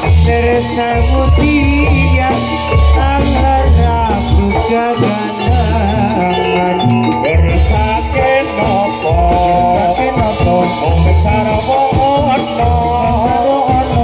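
Live music accompanying a jathilan (kuda lumping) horse-trance dance, with deep drum beats under a wavering melody line and singing.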